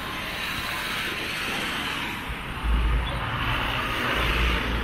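Road traffic passing on a city street, a steady hiss of cars, with a heavy low rumble coming in about two and a half seconds in.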